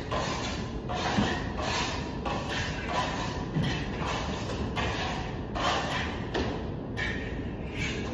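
Steel plastering trowels scraping over a Venetian plaster ceiling in quick repeated strokes, about one and a half a second, with a few dull thumps among them.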